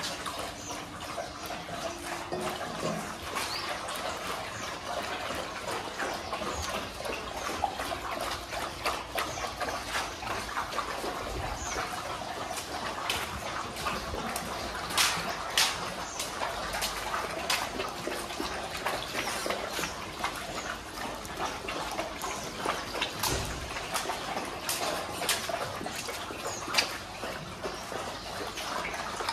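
Dogs lapping milk from steel bowls: a continuous wet lapping, with scattered sharp clicks.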